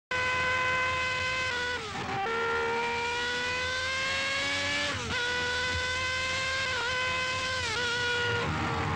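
Ford Cosworth V8 Formula 1 engine running at full throttle, its pitch climbing steadily through each gear. It drops sharply on gear changes about two and five seconds in, with several quicker dips near the end.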